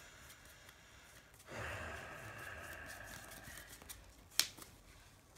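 A person sighs with a long breathy exhale of about two seconds, starting about a second and a half in. Near the end comes a single sharp tap, with a few fainter clicks of cards being handled on the playmat.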